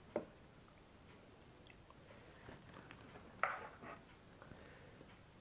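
Faint eating sounds from a mukbang: wet chewing with a few small clicks, and two sharper smacks, one just after the start and one about three and a half seconds in.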